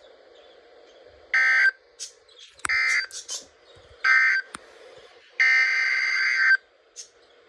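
Emergency Alert System data bursts: three short buzzing bursts about a second apart, the end-of-message code closing the warning, then a longer burst near the end that begins the header of the next alert. Faint radio hiss lies between the bursts.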